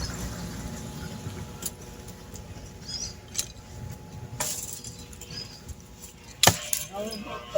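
A few sharp, separate blows of a blade chopping into wood, the loudest about six and a half seconds in.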